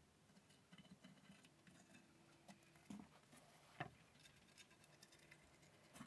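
Near silence with a few faint, short knocks and clicks, the two clearest about three and four seconds in.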